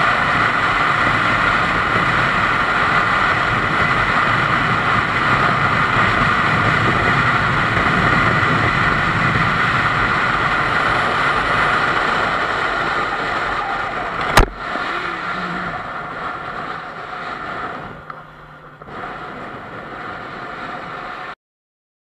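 Motorcycle riding at highway speed, a steady loud rush of wind and engine noise picked up on the bike. About fourteen seconds in there is a single sharp knock, after which the rush grows weaker and uneven. The sound cuts off abruptly near the end.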